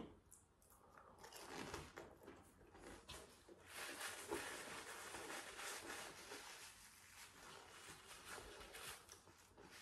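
Faint chewing of a fried McDonald's apple pie, mixed with light rustling of its paper sleeve as it is held.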